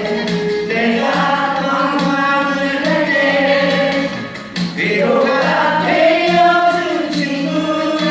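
Background music with singing over a steady beat.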